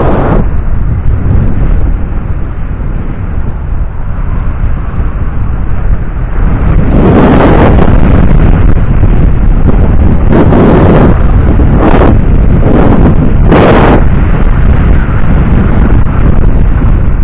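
Wind buffeting the microphone of an action camera on a moving electric bike: a loud, low rumble that grows louder about six or seven seconds in, with several stronger gusts after that.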